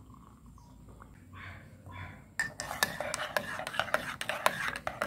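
Metal spoon clinking rapidly against a ceramic mug while stirring a hot drink. It is faint at first, then turns loud and dense about two and a half seconds in.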